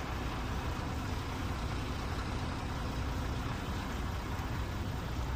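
An engine idling: a steady low rumble that does not change.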